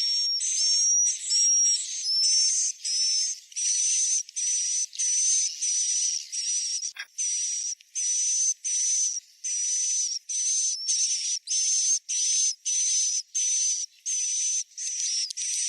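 Swiftlet roosting-call (suara inap) recording: short, high-pitched, hissy chirps repeating about one and a half times a second, a lure sound played to draw swiftlets to roost in a swiftlet house. A brief click sounds about seven seconds in.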